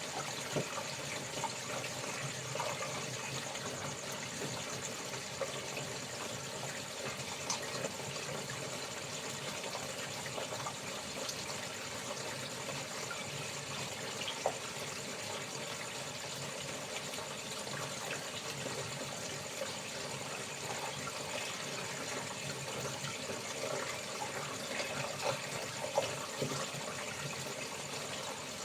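Water running steadily, as from a tap filling a basin for washing laundry, with a few small knocks and splashes. A steady high insect chorus sounds behind it.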